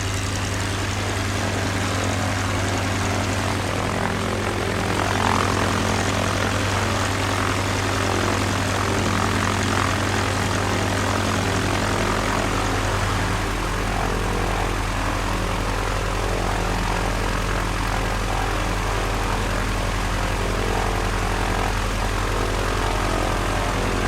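Propeller airplane engine idling steadily, a low, even drone with its propeller turning.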